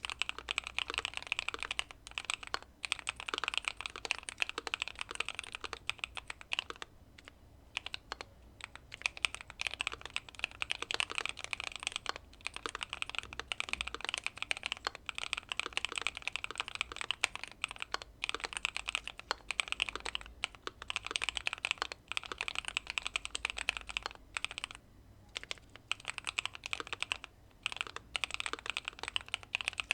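Continuous fast typing on a Keychron Q2 mechanical keyboard with factory-lubed Pearl Lemon switches, tape-modded and case-foamed, with a few brief pauses. A dense run of key presses and bottom-out clicks.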